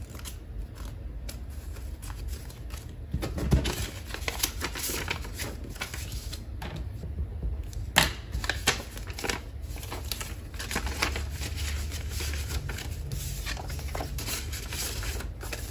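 Paper bills and cloth-patterned envelopes rustling and being handled on a desk, with scattered light taps. One sharp tap comes about eight seconds in, over a steady low hum.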